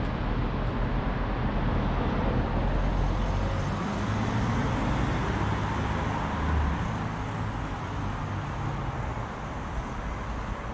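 Steady street ambience: a continuous rush of road traffic noise with a low rumble, easing slightly near the end.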